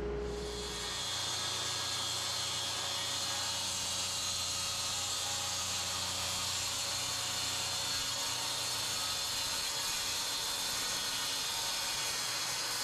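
Steady mechanical whir with a high hiss from workshop machinery running, with a low hum that drops out about a second in.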